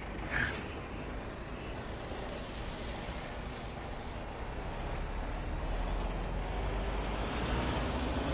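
Mercedes-Benz Actros tractor-trailer's diesel engine running with tyre and road noise as the truck drives slowly, growing slightly louder toward the end, with a brief hiss about half a second in.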